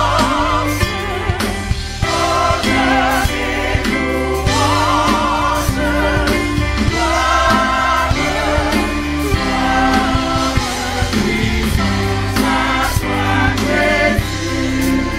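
A choir singing a French hymn with vibrato over instrumental backing with a steady beat.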